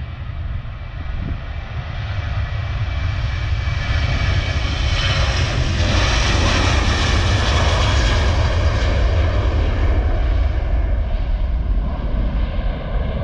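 Ryanair Boeing 737 jet airliner taking off at full thrust: the engine noise builds as it accelerates down the runway, is loudest as it passes and lifts off about halfway through, then begins to ease as it climbs away.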